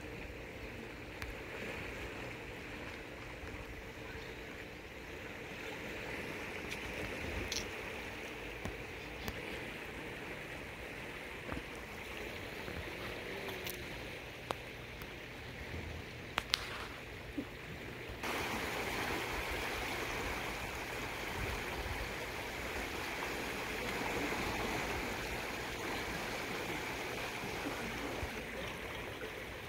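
Steady rush of river current in the tailwater below a dam, growing suddenly louder and fuller about 18 seconds in, with a few faint clicks.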